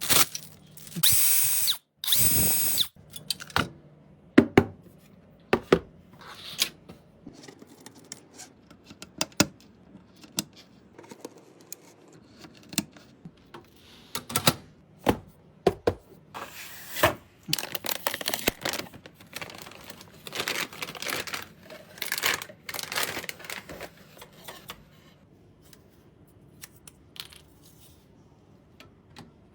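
Small power screwdriver running in two short bursts at the start, then scattered clicks and knocks of computer parts being handled and fitted.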